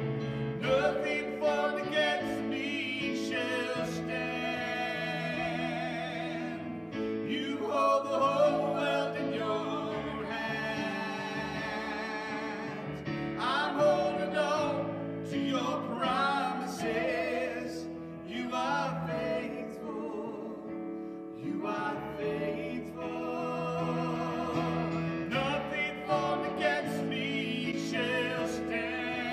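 A man and a woman singing a worship song together with vibrato, accompanied by held chords on a Yamaha electric keyboard.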